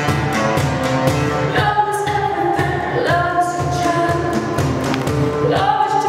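Live acoustic band music: a woman sings long held notes over acoustic guitar and a steady cajon beat, her voice coming in about a second and a half in.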